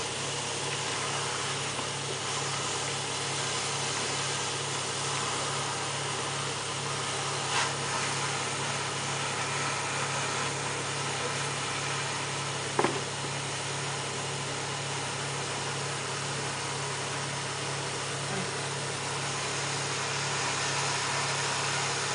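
A machine engine or motor running steadily at constant speed, an even low drone, with two brief knocks about a third and just over halfway through.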